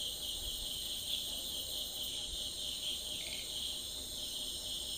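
Steady high-pitched insect chirring, without pause.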